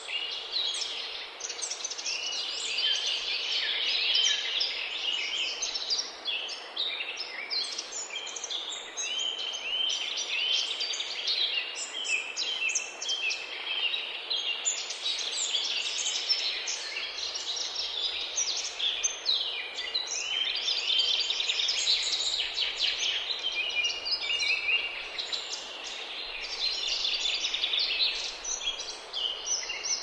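Many small birds singing at once: a dense, continuous chorus of high chirps and quick trills, overlapping without pause.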